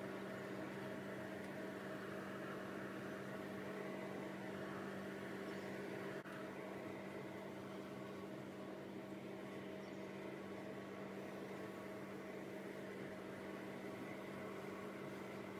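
Steady electrical hum with one strong low constant tone and a few fainter higher tones, with a brief dip about six seconds in.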